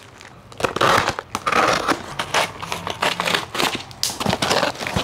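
Cardboard shipping box being handled and pulled open, with rough tearing and rustling of the packaging, loudest about a second in.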